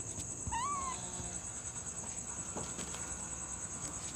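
Small black kitten giving one short mew about half a second in, over a steady high-pitched insect chorus.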